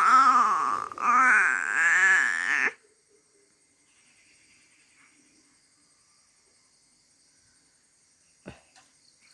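A loud, wavering cry in two parts lasting nearly three seconds, the second part longer, then quiet with a single sharp click near the end.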